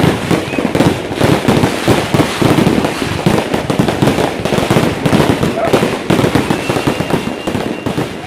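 Fireworks going off in a dense, unbroken barrage of bangs and crackles, many per second.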